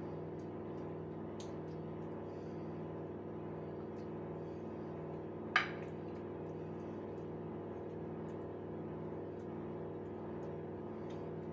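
Steady low hum, with one sharp clink about halfway through as the basting brush knocks against the sauce bowl while a chicken is brushed with sauce.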